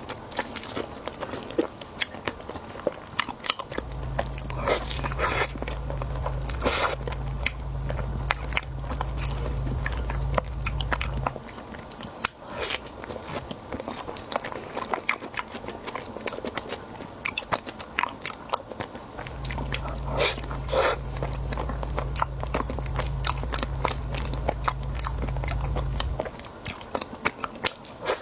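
A person eating close to the microphone: repeated crunchy bites and chewing. A low hum comes in twice, for several seconds each time.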